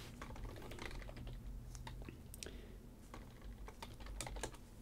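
Faint, irregular clicks and ticks of a stack of chrome trading cards being slid and flipped through by gloved hands.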